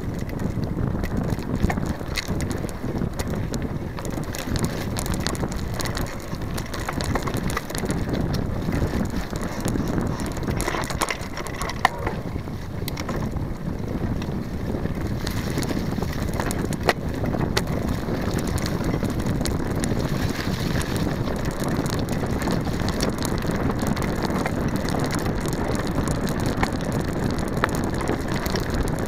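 Mountain bike riding downhill over a twisting dirt singletrack, heard through a camera mounted on its frame: a continuous low rumble of tyres on dirt and a rattling frame, with many small clicks and knocks and a couple of sharper knocks about halfway through. Wind rushes over the microphone.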